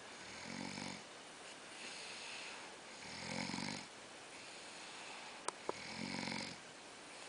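A sleeping person snoring in a slow, even rhythm: three snores about two and a half seconds apart, with softer breathy sounds between them. Two quick sharp clicks come just before the third snore.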